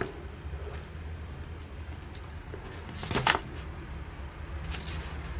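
Handling noise from a paper instruction sheet rustling in the hands: a few short rustles, the loudest about three seconds in, over a low steady hum.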